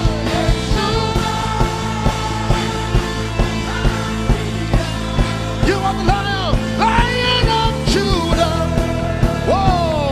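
Live worship band music: sustained chords over a steady drum beat, with a lead melody that bends and slides in pitch in the second half.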